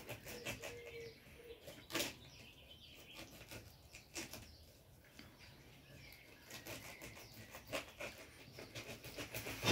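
Serrated kitchen knife sawing through a pineapple's tough rind: a run of faint, rasping strokes, the loudest about two seconds in.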